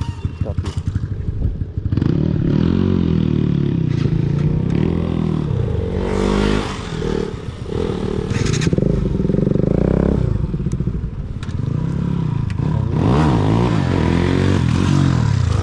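Bajaj Pulsar NS motorcycle fitted with an aftermarket Akrapovic full-system exhaust, its engine revving up and falling back several times.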